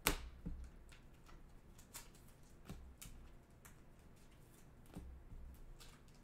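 Trading cards being handled and slipped into clear plastic sleeves and a rigid top loader: a sharp plastic click at the start, then scattered light taps and slides.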